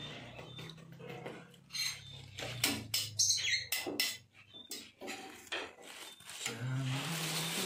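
A plastic ladle knocking and scraping against a metal saucepan as coconut milk is scooped out and poured into plastic bags: a run of separate clicks and knocks.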